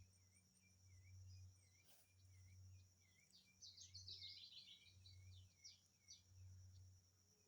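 Faint forest ambience: a bird gives a string of short repeated chirps, with a quick burst of higher falling notes a little past the middle, over a steady high hum.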